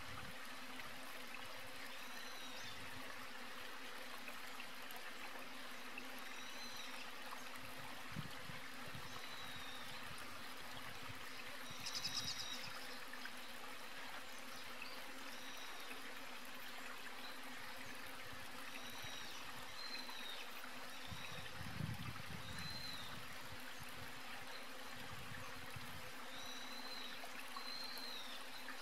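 Steady rush of running water, with short high chirps recurring every second or two and a brief buzzy trill about twelve seconds in.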